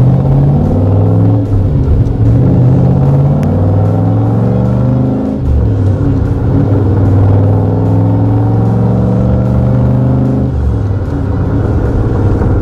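1967 Corvette's 427 V8 with side-exit exhaust accelerating hard through the gears, heard from inside the cabin. Its note climbs and drops back at each upshift, three times.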